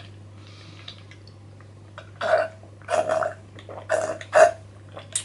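A man sips a fizzy pineapple drink through a metal straw and makes four short throaty mouth sounds, starting about two seconds in and coming roughly every half to one second.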